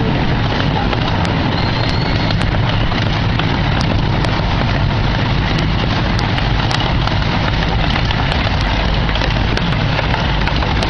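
16-inch gauge gasoline-powered miniature park train running along the track, heard from aboard a passenger car: a steady low rumble with scattered short clicks of the wheels and cars.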